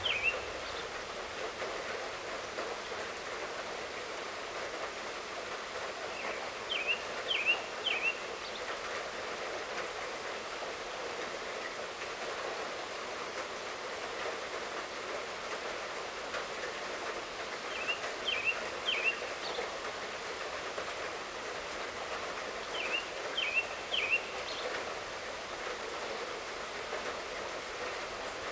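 Steady light rain falling. Every several seconds a bird gives a short call of three quick high chirps.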